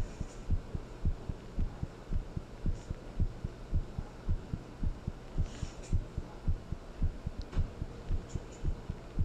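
Heartbeat: a steady lub-dub of low thumps at about two beats a second, over a faint low hum.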